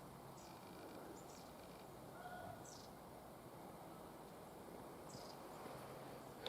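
Near silence outdoors, with a handful of faint, brief bird chirps spread through it.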